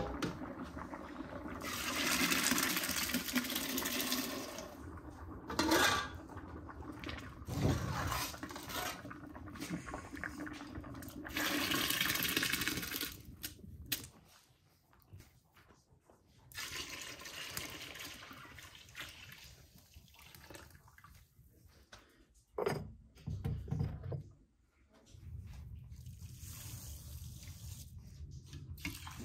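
Water poured from a metal bucket into a large aluminium stock pot, splashing loudly, in a long pour about two seconds in and another past the middle. In between and later come quieter splashes and knocks, as grains are tipped into the water and a hand swishes it.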